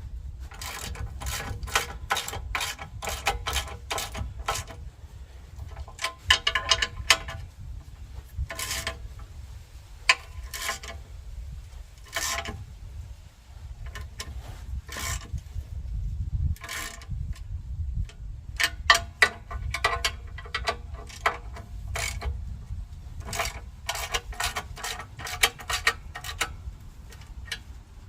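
Socket ratchet clicking in quick runs with short pauses, tightening nuts onto bolts.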